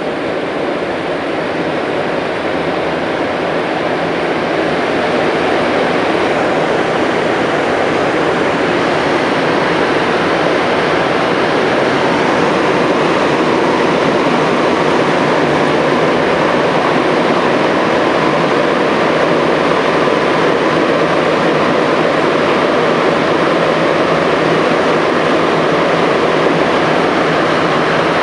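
MR-73 rubber-tyred metro train heard from inside the car, pulling away from a station and running into the tunnel. The running noise builds over the first few seconds, then holds steady.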